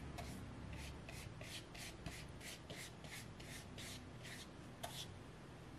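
Wide flat watercolour brush swept rapidly back and forth over wet White Watson watercolour paper, spreading a thin wash: a faint, soft brushing hiss, about five strokes a second. A small knock about five seconds in.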